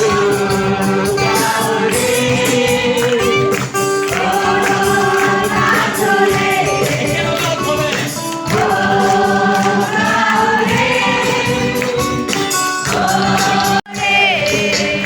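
A church carol team sings a Christmas carol as a choir, with musical accompaniment. The sound drops out for an instant near the end.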